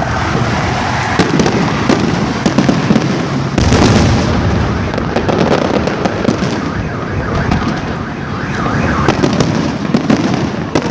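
Fireworks going off in quick succession: dense crackling with sharp bangs, and a louder burst about three and a half seconds in.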